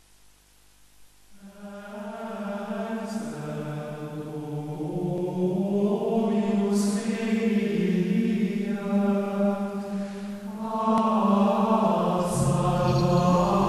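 Soundtrack music: a choir-like chant of long held notes that fades in after about a second of near silence and steps from note to note every few seconds, with a low bass coming in near the end.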